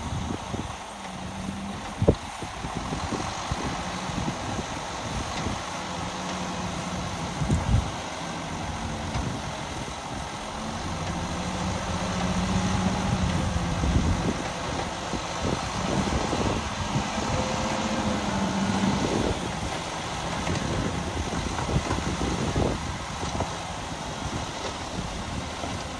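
Heavy diesel engine of earthmoving machinery running, its pitch dipping and rising as it works, with a few sharp clanks, the loudest about two seconds in and near eight seconds.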